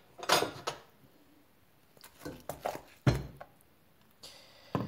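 A few knocks and clinks of a steel pot and utensils as sliced red onion is moved into the pot, with a dull thunk about three seconds in.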